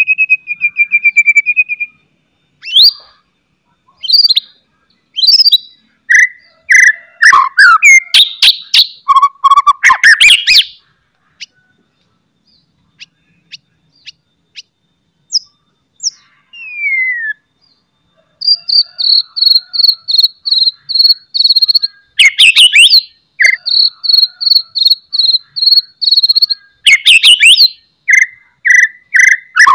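White-rumped shama (murai batu) singing loudly: varied sharp whistled phrases broken by harsh, clicking rattles. There is a sparse stretch midway with a single falling whistle, then a long run of rapid repeated high notes, about three a second, mixed with more rattles near the end.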